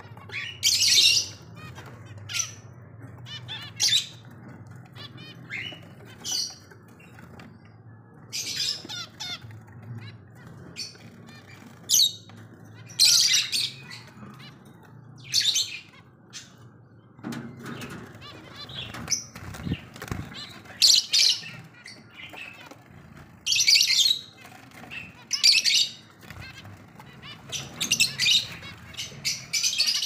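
Pet finches making short bursts of bird sound, chirps and wing flutters, every second or two, over a low steady hum that fades about halfway through.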